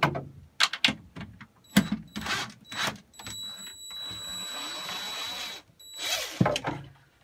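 Cordless drill/driver backing screws out of wooden wall slats: a few short bursts of the motor, then a steady run of about two and a half seconds, with clicks and knocks of handling around it.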